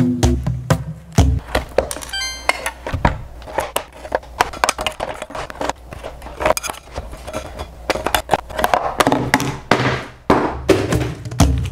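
A knife scraping and prying a cooked phone off a waffle iron's metal grid: a series of sharp cracks, knocks and scrapes, with a quick run of ticking about two seconds in. Background music drops out after about a second and returns near the end.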